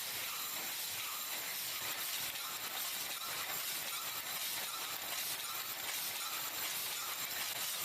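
Steady hiss of metal-forming factory machinery, with faint light metallic clinks.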